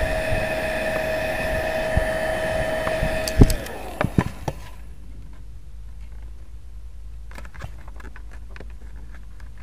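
Heat gun running with a steady whine and blowing air, switched off with a click about three and a half seconds in. A few knocks follow as it is set down, then faint ticks from hands working the plastic lid.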